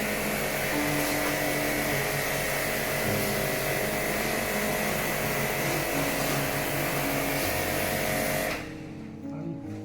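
Portable jet pump (pressure washer) used for AC cleaning, running with a steady high whine and a loud hiss of spraying water; it cuts off suddenly near the end.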